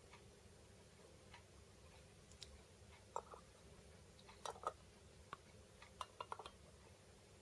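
Faint light clicks of small metal cat-food tins being set one on top of another, a few scattered taps mostly in the second half over quiet room tone.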